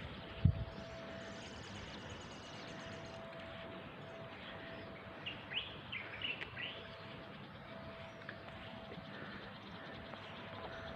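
Birds chirping: a short cluster of quick chirps about five to seven seconds in, over a faint steady background with a thin tone that comes and goes. A single low thump about half a second in.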